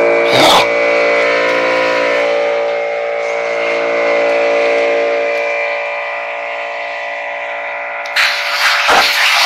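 Air compressor running with a steady hum of several tones, while compressed air blows from a nozzle in short rushing blasts, one about half a second in and gusty bursts near the end, the air striking the microphone.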